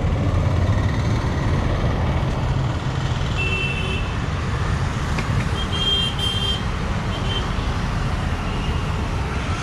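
Steady low rumble of road traffic going past, with faint vehicle horns tooting briefly about three and a half seconds in and again about six seconds in.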